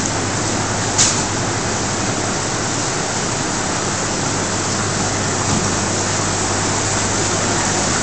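A steady, even rushing hiss, with one short click about a second in.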